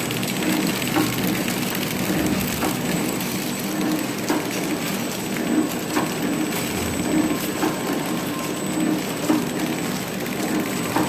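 Automatic pie-cake packaging machine running: a steady mechanical hum with irregular light clicks and clacks from its moving parts.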